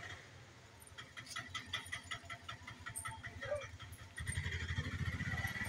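An engine running nearby with a steady low pulsing hum that gets louder about four seconds in, with a run of rapid light ticking in the first half.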